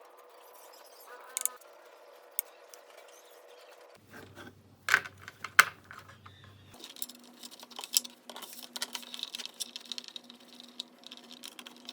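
Scattered light clicks and taps of small hand work, the loudest two close together about five seconds in, over a faint steady hum.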